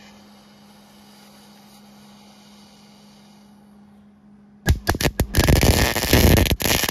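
A faint low hum, then about two-thirds of the way in a MIG welding arc strikes with a few sharp pops and runs on as a loud continuous crackle. Weld is being added to build up a damaged crankshaft tone ring.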